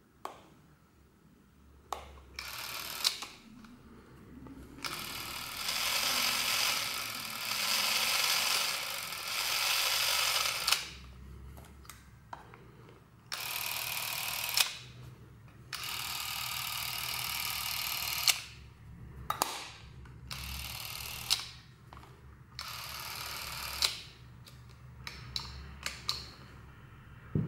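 Revue Cockpit S6L Super 8 cine camera (built by Chinon) running its small electric motor in about six separate runs of a steady whir, the longest about six seconds, with a click as each run starts or stops. The camera is running smoothly and working.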